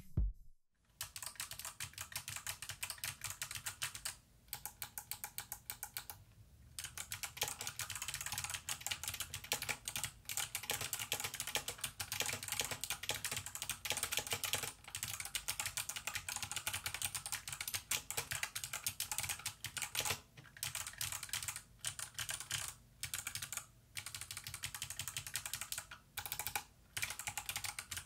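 Input Club K-Type mechanical keyboard with Kailh Box Jade clicky switches being typed on continuously, a dense run of sharp clicks with a few brief pauses.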